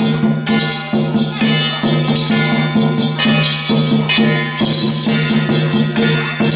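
Temple procession music with loud percussion, drums and clashing cymbals striking a quick, even beat over steady low held tones.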